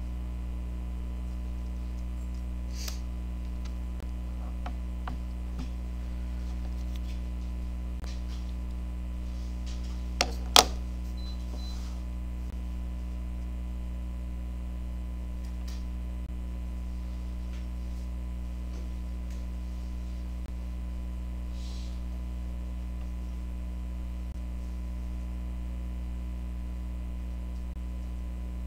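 Steady low electrical hum with a few faint clicks scattered through it; about ten seconds in, two sharp clicks close together, the second the loudest.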